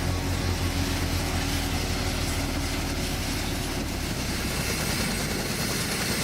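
Sikorsky Black Hawk helicopter running with its twin turboshaft engines and rotor, a steady, dense rush of noise as it comes in to land.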